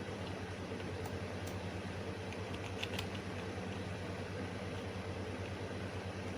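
Steady low machine hum, like a computer or room fan, with a few light clicks of keys or a mouse about three seconds in.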